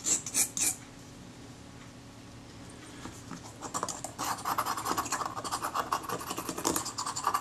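Scalpel blade scraping dried adhesive off a metal plate from a Kodak Retina IIIS camera. There are three short strokes at the start and a pause, then quick, repeated scraping strokes from about three and a half seconds in.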